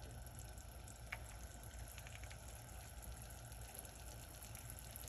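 Two eggs frying in a nonstick pan: a faint, steady sizzle, with a light click about a second in.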